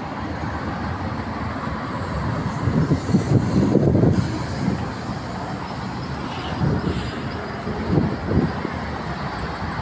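Low rumble of road traffic, swelling louder about three to four seconds in and again near eight seconds.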